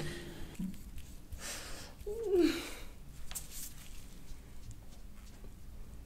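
A short murmur from a person, falling in pitch, a little after two seconds in, with a few soft breathy hisses before and after it.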